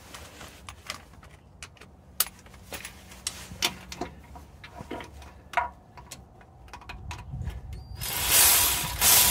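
Socket ratchet clicking in short, irregular strokes as the nut on a new starter motor's main power cable terminal is tightened. Near the end comes a louder, noisy burst lasting about a second.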